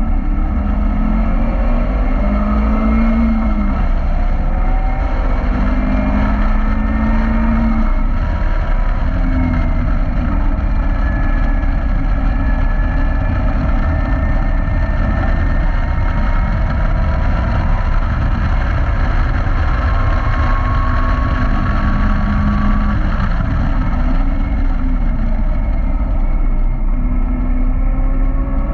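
Caterham Roadsport sports car's engine at full throttle on track, the revs climbing and dropping again and again as the driver runs up and down the gears, heard from the open cockpit with heavy wind and road rumble.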